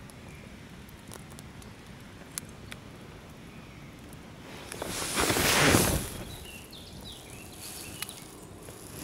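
Wood campfire crackling faintly with scattered sharp pops, then a loud rushing rustle about five seconds in that lasts about a second.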